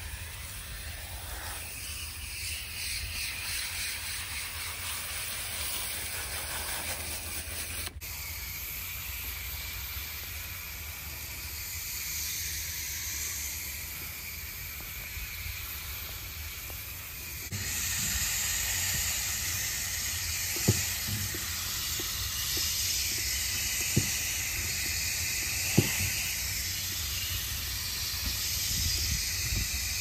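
Garden hose spray nozzle jetting water onto the fins of an air conditioner's outdoor condenser coil, rinsing off coil cleaner: a steady hiss of spray. It gets louder about two-thirds of the way through, with a few sharp taps near the end.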